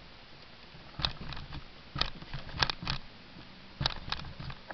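A Blu-ray box set being handled on a tabletop: a handful of short knocks and taps as the box is set down, shifted and picked up.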